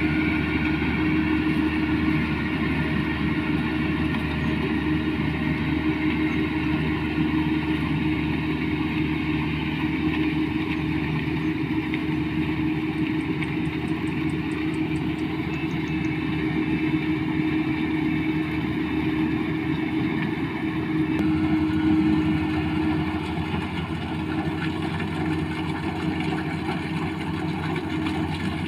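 Combine harvester's engine and machinery running steadily, with a change in tone about two-thirds of the way through.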